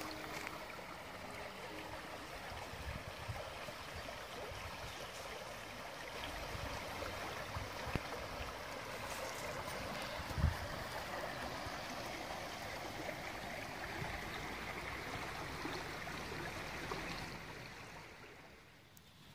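Stream water flowing and trickling steadily, fading out near the end, with a single low thump about ten seconds in.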